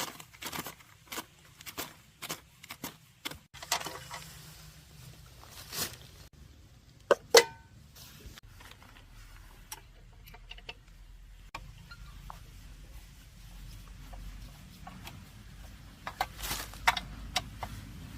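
Hand work on metal engine parts: a run of small clicks and knocks, two sharp metallic clinks with a brief ring about seven seconds in, then quieter handling and a few more clicks near the end.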